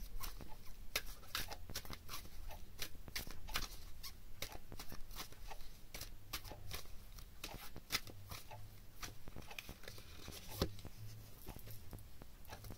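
A deck of oracle cards being shuffled by hand: a long, uneven run of light clicks and flicks as the cards slide and tap against each other.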